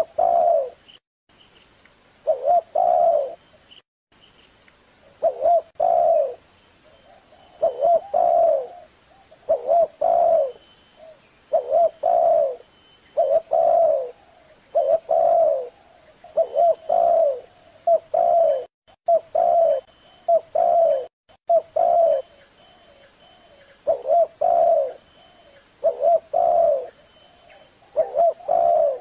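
Spotted dove cooing: a short phrase of a few low coos, repeated over and over about every one and a half to two seconds.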